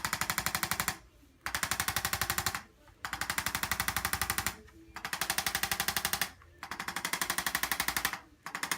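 Hand-held chiropractic adjusting instrument firing rapid taps, about ten a second, against a seated patient's lower back. It runs in five bursts of a second or so each, with short pauses between.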